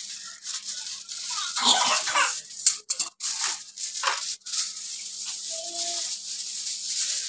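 Aluminium foil crinkling and rustling in irregular crackly surges as it is cut from the roll with scissors and unrolled.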